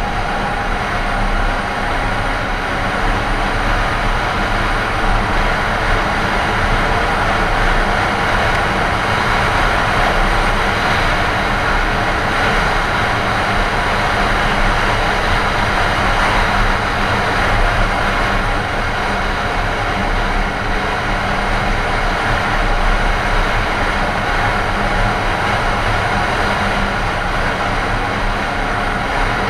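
Snowmobile running steadily at trail speed: a constant engine drone mixed with rushing track and snow noise, holding an even pace with no letting off.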